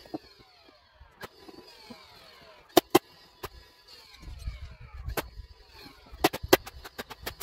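A string of sharp cracks from siding work, loudest as a pair about three seconds in and as a quick cluster near the end, over a low rumble.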